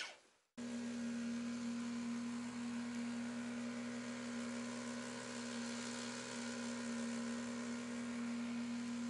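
A steady motor hum at one constant pitch, starting abruptly about half a second in.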